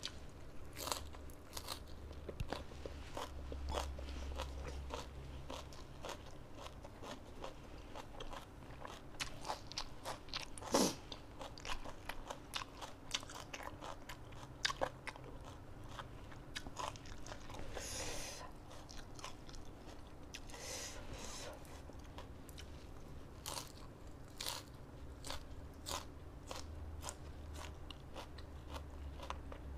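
A person eating crunchy raw vegetables and salad, close to the microphone: repeated bites and crunching with mouth clicks, a few louder crunches along the way.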